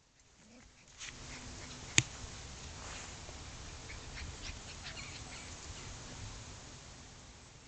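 Chow chow puppies play-fighting, with short high squeaks and yips over light scuffling. One sharp click about two seconds in.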